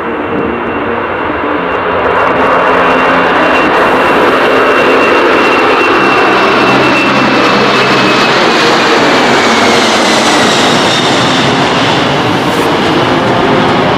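Boeing 747-400F's four turbofan engines at takeoff power: a loud jet roar with a high whine that slides down in pitch from about eight seconds in as the freighter passes.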